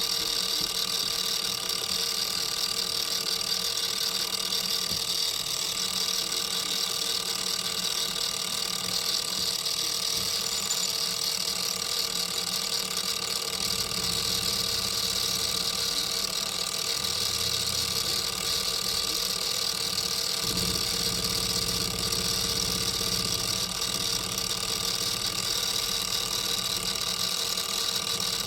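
A machine running with a steady hum and a strong high hiss, a low rumble joining about halfway through.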